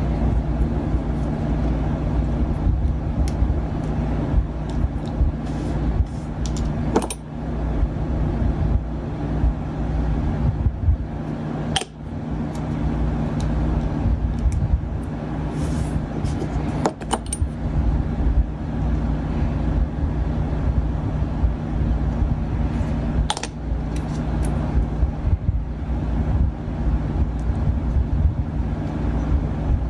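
Steady low rumbling hum with a constant drone, from a machine or fan running in the room, with a few sharp small clicks and taps as tiny plastic model parts are handled and fitted.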